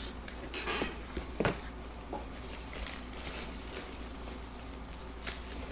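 Packing paper rustling and small knocks as items are lifted out of a package: a couple of short rustles under a second in, a sharp click about a second and a half in, then faint handling noise with another click near the end.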